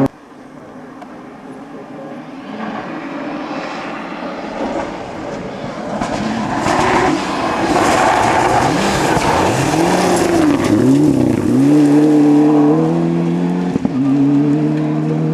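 Rally car on a special stage approaching at speed, its engine growing louder. About ten seconds in the engine note dips and climbs twice as the driver lifts and changes gear, then it holds a steady high note as the car passes.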